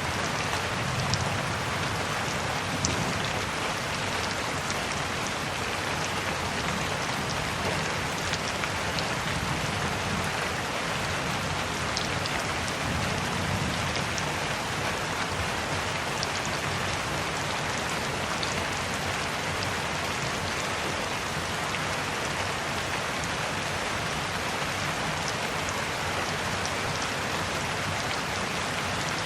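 Steady rain falling, an even hiss with many scattered individual drops ticking through it.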